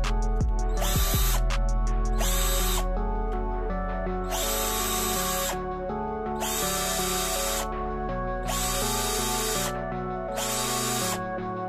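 Parkside PBSA 12 E4 12 V cordless drill-driver running free with nothing in the chuck, in about five short bursts of roughly a second each with pauses between. A few clicks near the start come from the clutch collar being turned. Background music runs throughout.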